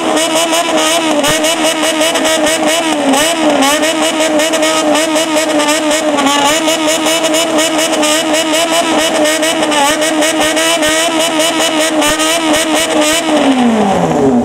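Straight-piped four-cylinder motorcycle engine held high and worked rapidly on the throttle in a rhythmic 'call', the pitch warbling up and down, with cracks from the exhaust. Near the end the revs fall away.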